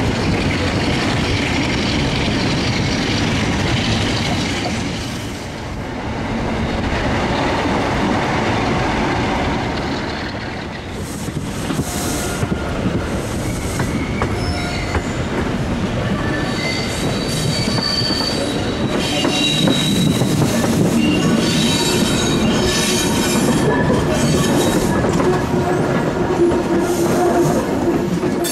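Class 47 diesel-hauled passenger train heard from a carriage window, running steadily at first. After a cut, the wheels set up a high squeal as the train takes tight curves at low speed, with clicks over rail joints.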